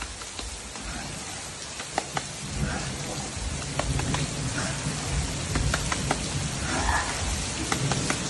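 Heavy rain pouring onto a concrete yard: a steady dense hiss, with scattered sharp taps of single drops striking close by.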